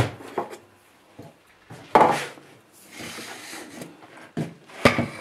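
Kitchen items being handled on a countertop: several knocks and clatters, the loudest about two seconds in and another sharp one near the end, with soft rubbing between.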